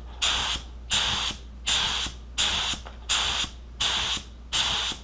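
Black Widow HTE air spray gun laying down clear coat in short trigger pulls: seven even bursts of hissing, about one every three-quarters of a second.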